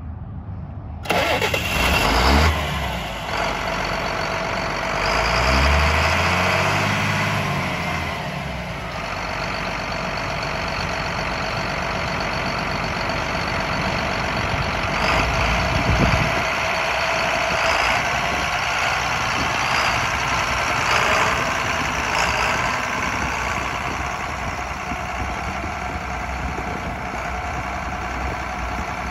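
John Deere 7800 tractor's six-cylinder diesel engine running. It is revved briefly a few seconds in, then settles to a steady idle.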